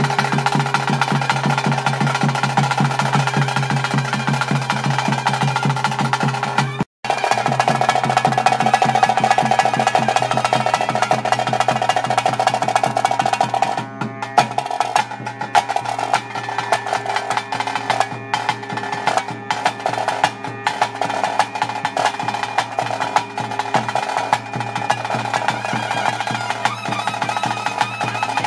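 Ritual drumming for a Tulu daivaradhane kola: drums played in a fast, continuous roll, with a pitched instrument holding long notes over them. The sound cuts out for an instant about seven seconds in, and the drumming carries straight on.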